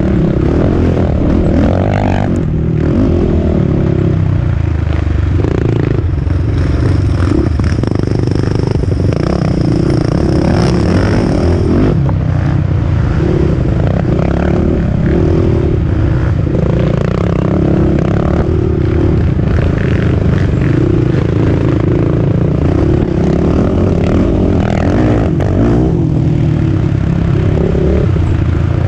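Racing quad (ATV) engine heard from on board, running hard with the revs rising and falling continuously through the trail's turns, over the rattle of the machine on the rough dirt; another quad runs close ahead.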